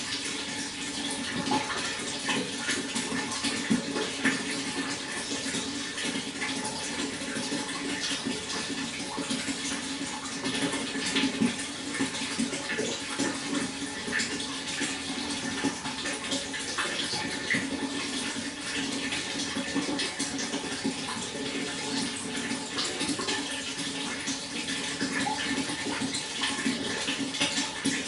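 Flowing water, a steady rush with constant small splashes and gurgles.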